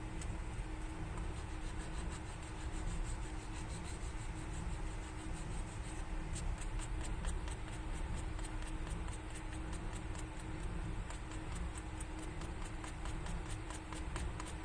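Fingertip rubbing across the abrasive grit of a zebra nail file, making a rapid run of faint scratchy ticks, about five or six a second, that starts about six seconds in, over a steady background hum.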